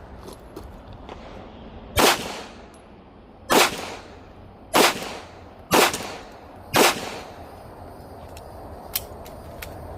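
Five shots from a SIG Sauer P365 Fuse 9mm pistol, fired one at a time with the gaps shortening from about a second and a half to about one second, each a sharp crack with a short echoing tail.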